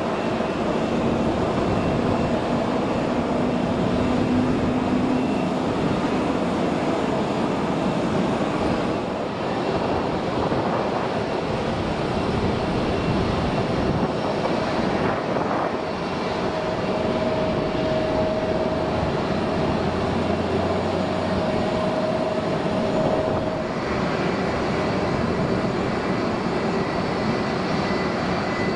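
Jet airliner engines running at taxi power across an airfield: a steady rush with faint whining tones that shift from time to time.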